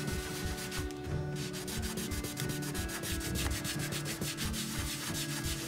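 A damp cloth rubbed briskly back and forth over oiled oak parquet, a rapid run of dry scratchy strokes. It is wiping off a water stain where the wood grain has risen and the surface has turned rough.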